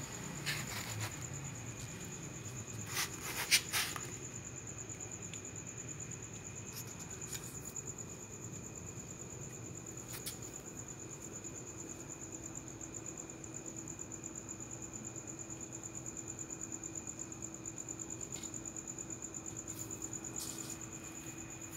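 Crickets trilling steadily in one high, unbroken tone. A few sharp clicks and knocks fall in the first four seconds, the loudest about three and a half seconds in.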